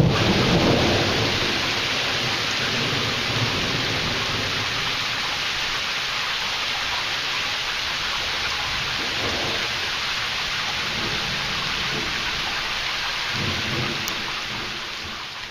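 Heavy rain falling steadily, with a low rumble of thunder dying away in the first second or so and a shorter low rumble near the end. The sound fades down in the last second.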